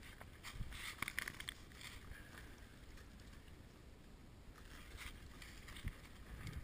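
Crunching and rustling of dry leaf litter from footsteps and handling, loudest in a cluster of crackles about a second in, over a low rumble of wind on the microphone.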